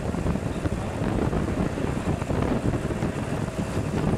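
Wind buffeting the microphone, a steady choppy low rumble.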